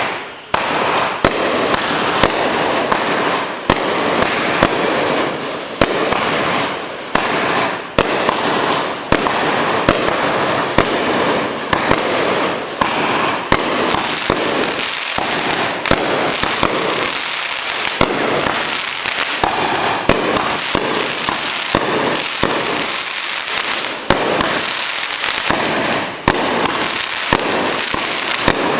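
Piercing Comet firework cake firing a long volley of comets, with a sharp pop roughly every second over a continuous hiss from the shots in flight and bursting.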